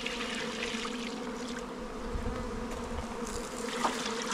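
Honeybees buzzing in a steady low hum around open hives, while sugar syrup is poured from a steel pot into a hive-top feeder, a soft splashing hiss in the first second and again near the end.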